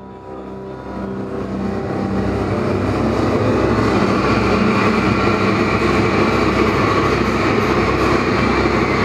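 A dense, rumbling noise drone fades in from silence and swells over the first three seconds, then holds loud and steady, with a faint low hum running through it.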